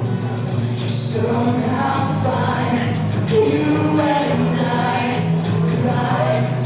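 A male and a female voice singing a duet to acoustic guitar accompaniment.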